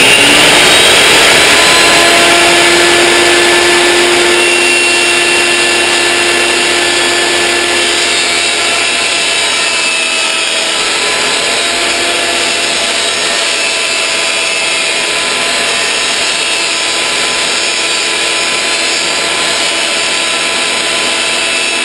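Benchtop table saw running at full speed, a loud steady whine with hiss, spinning up over the first second or two, as a sheet of plexiglass is fed slowly through the blade.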